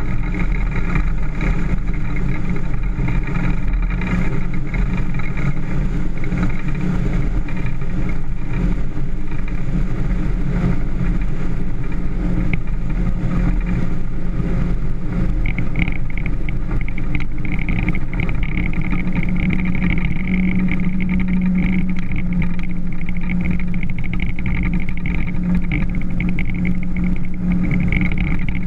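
Motorboat engine running steadily, with its hum firming slightly about two-thirds of the way through.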